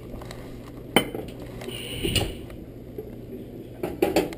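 Kitchen handling noises: a sharp knock about a second in, a short scrape around two seconds, and a few clanks near the end as an aluminium pressure-cooker pot is gripped by its handles and shifted on the stove.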